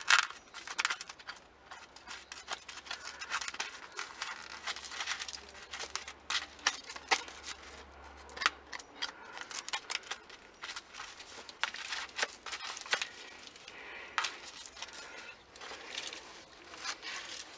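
Loose potting soil being scraped and dug out by hand in a plastic air-layering pot: irregular, crisp scratches and crackles of soil and fingers against the pot, uncovering the new roots.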